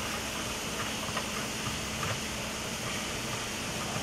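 Steady hiss of street-stall background, with a few faint light clicks about a second or two in as noodles are tossed by hand in a plastic bowl.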